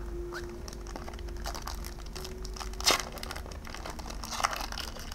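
Foil Pokémon booster-pack wrapper crinkling as it is handled, with a sharp snap about three seconds in and a smaller one near the end.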